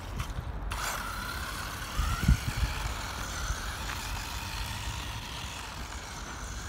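WLtoys A959-B 1/18-scale RC buggy's brushless electric motor whining as it drives at speed, the pitch rising and falling with the throttle, over a low rumble with a few thumps about two seconds in.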